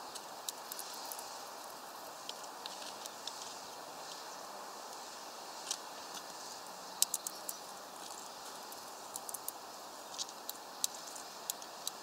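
Great tit at a mesh-bag bird feeder: scattered light, sharp taps and clicks from its beak and feet on branch and feeder, coming in small clusters, over a steady faint hiss.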